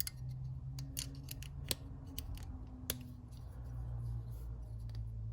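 Small metal clicks and scrapes of a stainless steel multitool as its fold-out tools are worked open, with two sharper clicks about a second apart near the middle, over a low steady hum.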